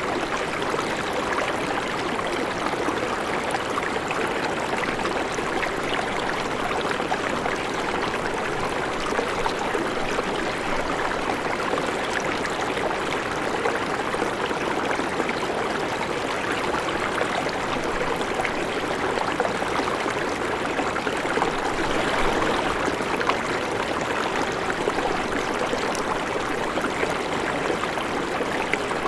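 River water flowing, a steady, even rushing of the current.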